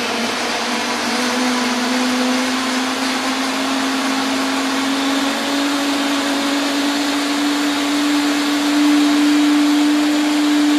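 Electric mini chopper running continuously as it chops onions, garlic, peppers, tomatoes and parsley, its motor pitch rising slowly.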